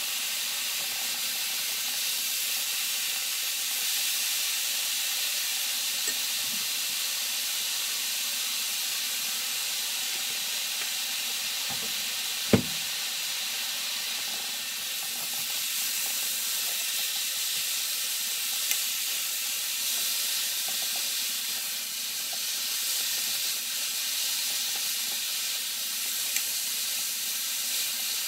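Food cooking on the stove: a steady, even hiss of sizzling or steaming. There is one sharp knock about halfway through and a few faint clicks.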